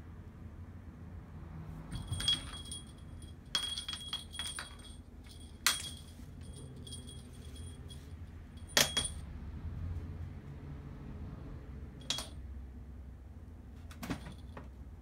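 A small jingle bell on a cat wand toy, jingling in short shakes as the lure on its string is jerked about. There are about half a dozen bursts, the loudest about nine seconds in.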